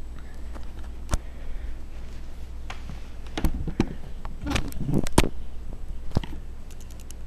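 Scattered knocks, clicks and scuffs on the camera's microphone, from something touching or batting at the camera. They are thickest about four to five seconds in, over a steady low hum.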